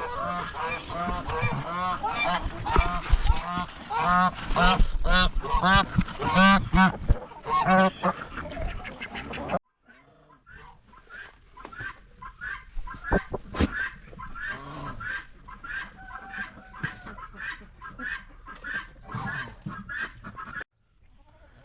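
A flock of geese honking, many short calls overlapping. About ten seconds in it cuts off suddenly, and fainter, scattered calls follow with a few knocks.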